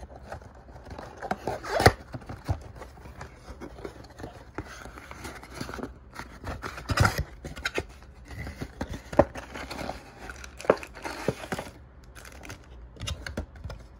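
Handling noise from a cardboard trading-card box being opened by hand: the flaps worked open with scraping and tearing, and the foil card packs slid out and set down with crinkling and rustling. A sharp knock about two seconds in, and irregular taps and rustles throughout.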